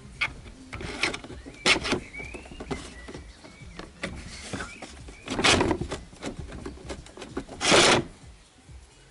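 Irregular scraping and rubbing against a wooden-framed wire-mesh cat trap, from short scuffs up to longer scrapes. The two longest and loudest scrapes come about five and a half and nearly eight seconds in.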